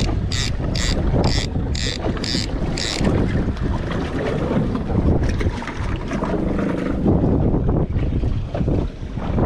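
Wind buffeting the microphone over the low rumble of a small boat at sea. A regular high-pitched ticking, about two ticks a second, stops about three seconds in.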